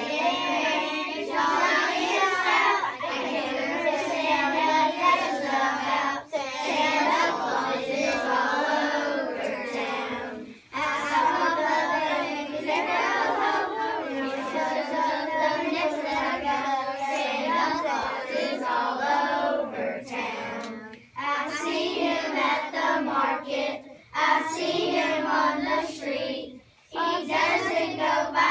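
A class of young schoolchildren singing a song together in unison, with a few brief breaks between lines.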